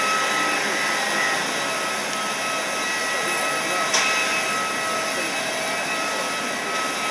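Steady jet-turbine whine and roar from aircraft on an airport apron, a constant hiss with several fixed high tones, and one short click about four seconds in.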